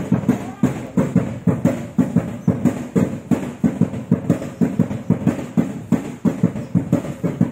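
Traditional percussion playing a fast, steady beat of about three and a half strokes a second, accompanying a dance performance.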